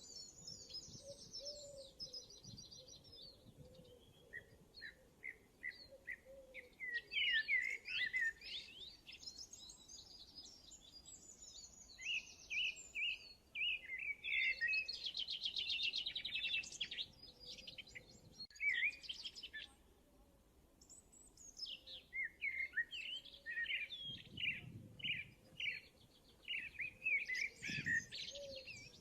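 Birds chirping and singing: quick high chirps and rapid trills in clusters, with a couple of quieter gaps.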